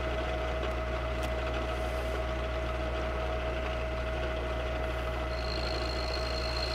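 Milling machine running a 14 mm high-speed-steel end mill through a dry cut in cast iron: a steady motor hum under a steady whine. A higher whine comes in about five seconds in.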